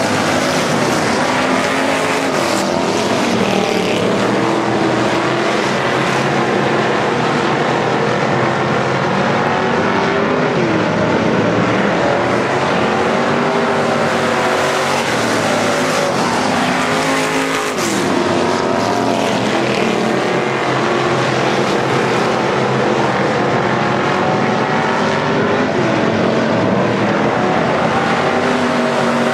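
A pack of hobby stock race cars running laps on a dirt track, several engines at once rising and falling in pitch as the drivers get on and off the throttle through the turns.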